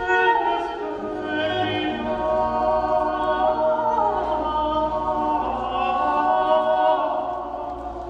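Dance backing music: a choir of voices holding long chords that change every second or two, loud and full, easing off near the end.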